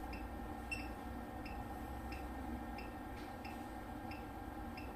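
Faint steady electrical hum from the CT test setup while an automatic ratio test runs. Soft, high ticks repeat about twice a second.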